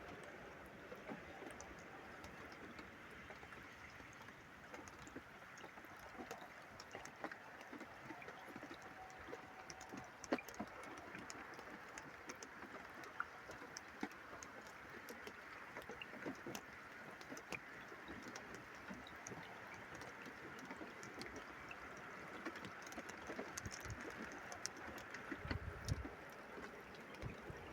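Faint dripping and trickling of rainwater, with many small scattered drips and ticks, as the storm's rain eases. A brief low rumble comes near the end.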